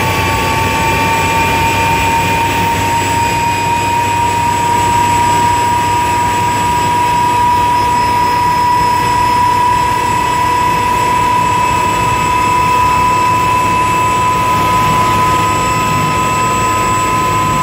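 Rolls-Royce (Allison) M250-C20B turboshaft engine running during a cold start, heard from inside the helicopter cockpit. A strong turbine whine rises slowly and evenly in pitch over a steady rumble as the engine spools up.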